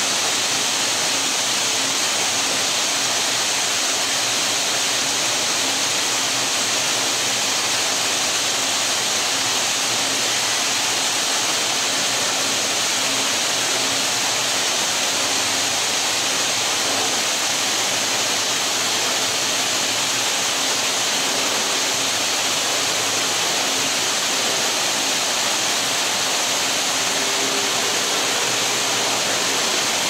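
Steady rushing, churning water on an Intamin river rapids ride, with white water foaming at the base of the lift's big spiral water screws. A faint steady hum runs underneath.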